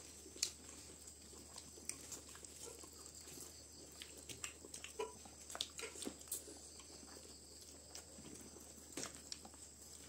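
Eating sounds: chewing and lip smacks, with scattered small clicks and rustles as rice is eaten by hand off a banana leaf.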